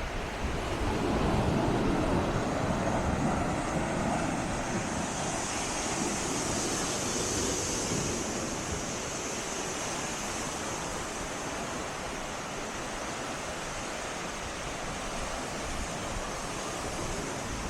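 Sea waves breaking at the tideline: a louder surge about a second in, then the hissing wash of the water running over the shore.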